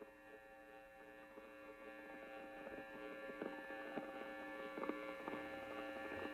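A steady hum of several held tones, slowly growing louder, with faint ticks in its second half.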